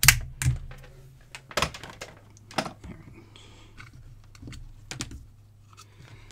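Bench handling clicks and knocks, about one a second, loudest at the start: a multimeter and its test leads being handled, then alligator clips pulled off an LED lamp module's pins and the aluminium-finned module picked up. A low steady hum runs underneath.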